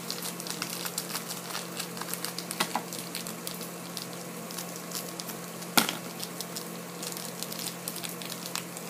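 Small plastic blind-bag wrapper crinkling in the hands and being cut open with scissors: faint crackles throughout and one sharp snip about six seconds in. A steady low hum runs underneath.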